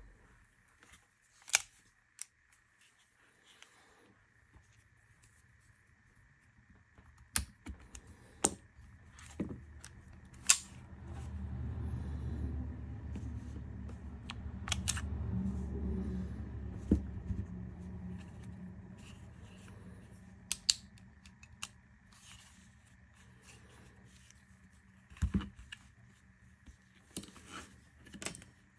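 Sharp metallic clicks and clacks of a Springfield Armory 1911 DS Prodigy pistol being stripped by hand, as parts shift, snap and are set down on a bench mat, a dozen or so separate clicks spread out with pauses between them. A low rumble of handling noise runs through the middle.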